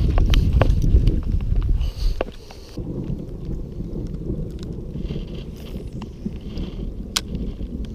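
Wind buffeting the microphone, heavy for the first two seconds and then lighter, with scattered sharp clicks and rustles. A single louder click comes about seven seconds in.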